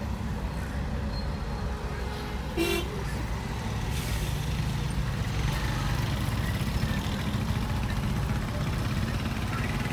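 Steady low traffic and engine rumble, heard from inside a car cabin in slow, congested traffic. A single short car horn toot sounds about two and a half seconds in.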